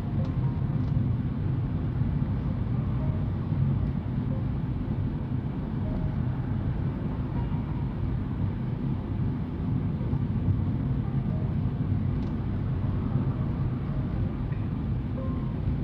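Steady low rumble of a car's engine and tyres heard from inside the cabin while driving at moderate city speed.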